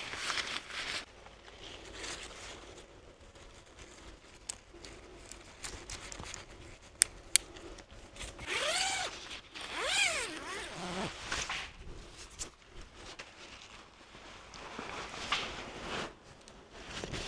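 Camping gear being handled while a hammock is rigged. Two sharp clicks come about seven seconds in, then two rasping zip pulls around nine and ten seconds in, each rising then falling in pitch.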